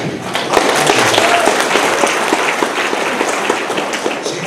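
Audience applauding, swelling about half a second in and thinning out near the end.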